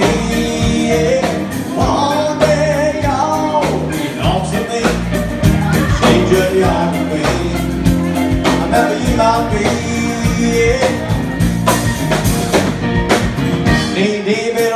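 Live rock band playing loud through PA speakers: a singer over electric guitar, bass and a steady drum beat.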